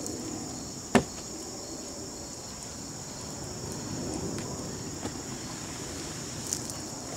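A cloth towel rubbing and wiping rainwater off a folding tabletop, with one sharp knock about a second in. A steady high insect chorus, crickets, runs underneath.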